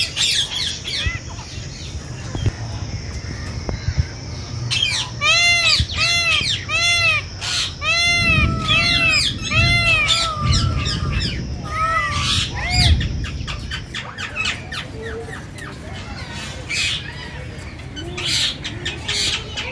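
Indian peafowl giving a rapid series of about eight loud, arched, honking calls, with smaller birds chirping around it.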